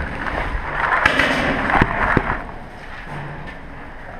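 A few scattered paintball marker shots, sharp pops, mostly in the first half, with the last second or so quieter.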